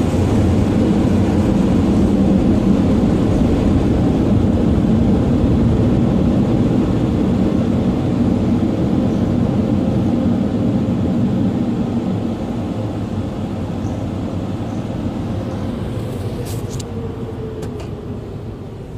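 Car wash air dryers blowing, a loud steady rush of air heard from inside a pickup truck's cab. It fades gradually over the last several seconds as the truck moves out of the wash.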